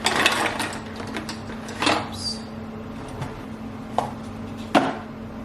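Kitchen handling noises: dishes and utensils clattering at first, then a few separate knocks and clinks as things are set down, over a steady low appliance hum.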